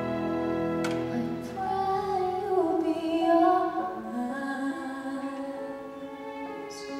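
A solo female singer, amplified through a handheld microphone, begins a slow ballad over a symphony orchestra. The orchestra holds soft sustained chords, and her voice enters about a second and a half in.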